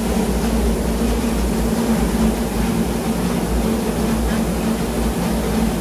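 Combined rice milling machine running, a steady mechanical drone with a low hum that does not change.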